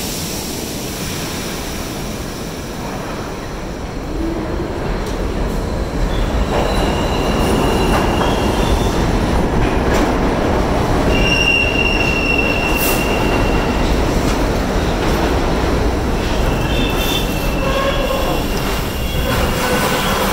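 Subway train pulling into an underground station: a steady rumble of steel wheels on the rails grows louder about six seconds in as the stainless-steel cars run past, with high-pitched squeals as the train slows, once around the middle and again near the end.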